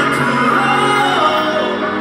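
Live pop concert music: a male vocalist sings a melodic line into a microphone over the band's backing track, amplified through the arena sound system.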